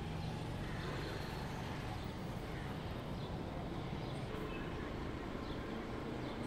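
Steady outdoor background noise, like distant road traffic.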